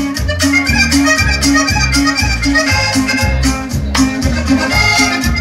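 Latin dance music with an accordion lead over a steady bass beat, played through a party sound system.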